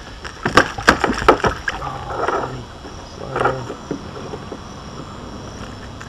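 A quick run of sharp knocks and clicks, then a couple of softer rustling sounds, as a small bass is unhooked with pliers at the side of a kayak.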